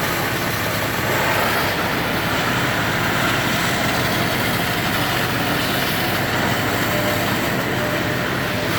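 Heavy machinery's diesel engine running steadily at a demolition site, a constant low hum under an even rush of noise.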